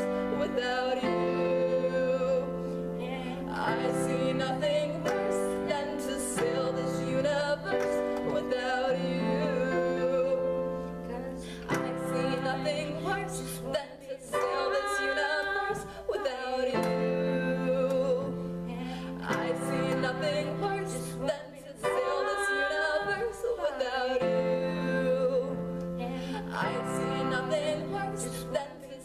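A woman singing a slow, sustained melody with vibrato, accompanied by held chords on a Yamaha Clavinova digital piano that change every second or two.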